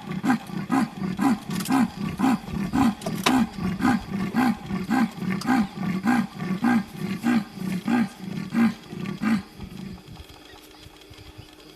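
Leopard giving its sawing territorial call: a series of about twenty hoarse, rasping grunts at about two a second, like a saw going through wood. The call stops about nine and a half seconds in.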